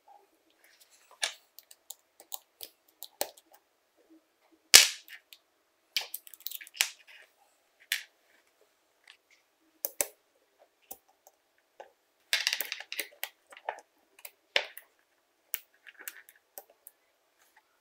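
Small steel parts of an impact driver's hammer mechanism (spindle, gear carrier, washers) clicking and clinking against each other and the workbench as they are taken apart, with one loud knock about five seconds in and a quick run of clinks near the middle.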